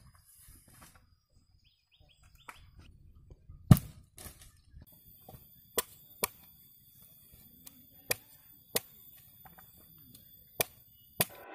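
Machete chopping into the husk of a young green coconut: a series of sharp, short chops one to two seconds apart, the loudest about four seconds in.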